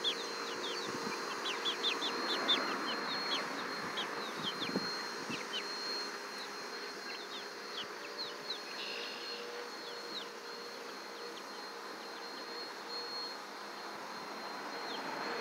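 Chicks peeping: many short, high, falling peeps, coming thick and fast in the first half and thinning out toward the end.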